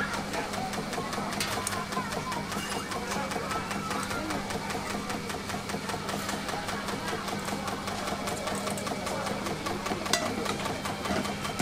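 A motor running with a steady, even hum, over faint background chatter.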